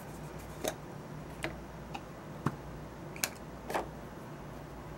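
Light clicks and taps of small tools and parts handled at a circuit board while new surface-mount capacitors are being fitted. About six sharp ticks come at uneven intervals over a steady low hum.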